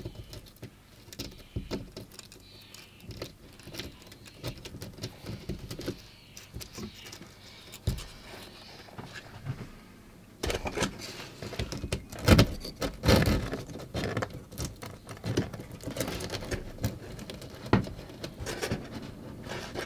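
Close-up handling sounds of a model railway signal being fitted into a polystyrene baseboard: irregular scratching, clicks and light taps, busier and louder from about halfway through.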